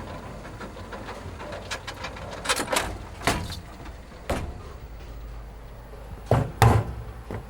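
A series of sharp knocks and thumps at uneven intervals, about six in all, with the loudest two close together near the end, over a steady low hum.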